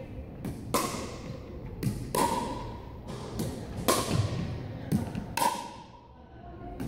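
Pickleball rally: the hollow plastic ball pops off the paddles and bounces on a hardwood gym floor, making sharp knocks about every second and a half that echo in the large hall. The knocks stop near the end.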